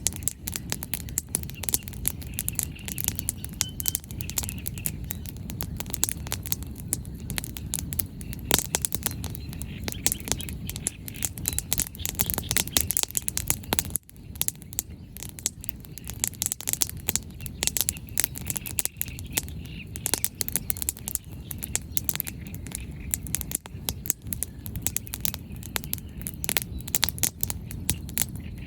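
Wood fire crackling, with dense, irregular sharp pops and snaps over a steady low rush. Faint bird chirps come through a few times in the background.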